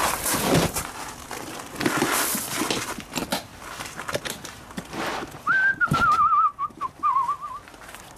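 Rustling and knocking of a handheld camera being carried about. About five and a half seconds in, a short, quickly warbling whistle comes in and drifts down in pitch over about two seconds.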